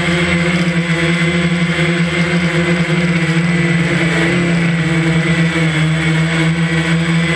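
DJI Phantom quadcopter's motors and propellers giving a steady, unbroken buzzing whine over a hiss, heard from the camera on board the drone while it hovers.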